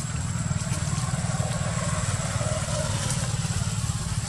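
An engine idling: a steady low rumble with a fast, even pulse, under a thin constant high whine.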